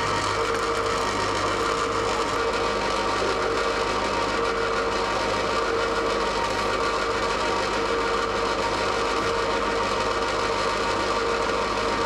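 Springlane Emma compressor ice cream maker running with a steady, even hum while its paddle churns the ice cream mix.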